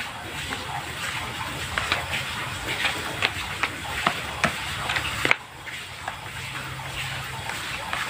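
Hands squeezing and kneading wet, sticky banana-based carp bait dough in a plastic tray: squelching with many small sticky clicks and smacks, over a faint low hum.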